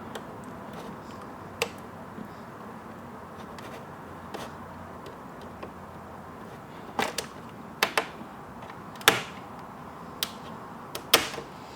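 Screwdriver working at the plastic case tabs of a WASD V1 keyboard: scattered sharp clicks, one early and then several in quick succession in the second half, over a faint steady hiss.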